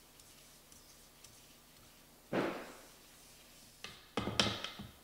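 Wooden spoon stirring mango chunks and sugar in a plastic mixing bowl: a short scraping swish about two seconds in, then a quick cluster of knocks and clatter near the end.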